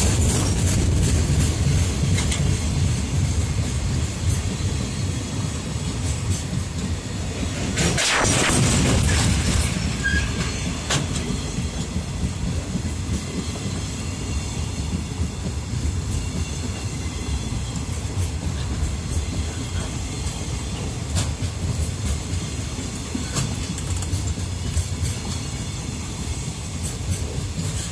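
Loaded Koki 104 container flat wagons of a freight train rolling past: a steady rumble of steel wheels on rail with clicks over the rail joints. It swells briefly about eight seconds in.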